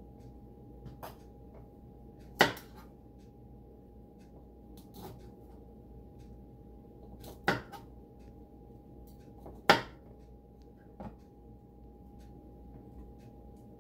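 A kitchen knife cutting broccoli on a plastic cutting board: a few sharp knocks spaced a few seconds apart, three of them loud, over a faint steady hum.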